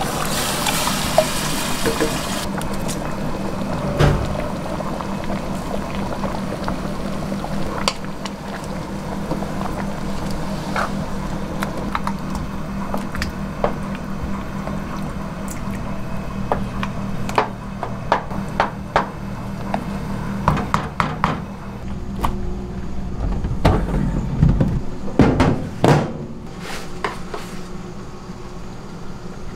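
Canned peeled tomatoes poured and plopping into an aluminium pot, then the thick sauce stirred with a spoon, over a steady low hum. Near the end, several loud clanks of steel pizza pans being handled.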